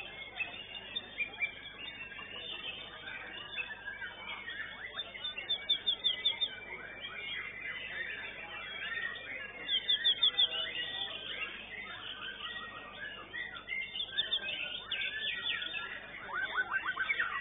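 White-rumped shama (murai batu) singing in a contest cage: a continuous busy warble with three louder bursts of rapid, repeated high notes, against other songbirds singing around it.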